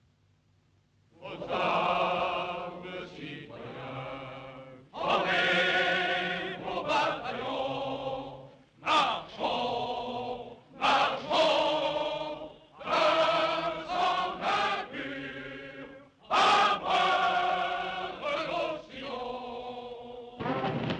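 A choir of voices singing in long phrases with short breaks on an old film soundtrack, starting about a second in after near silence.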